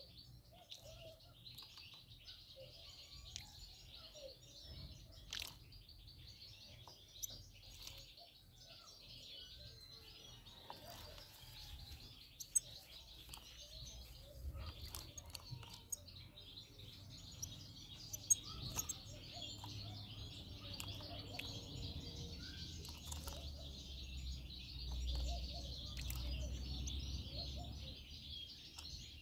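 Small songbirds twittering and chirping without pause. There are a few sharp clicks, and a low rumble builds in the second half.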